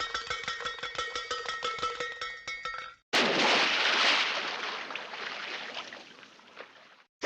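Classic cartoon sound effects: a fast clattering rattle over a few steady tones, then after a brief gap a sudden loud burst of rushing noise, like a crash or blast, that fades away over about four seconds.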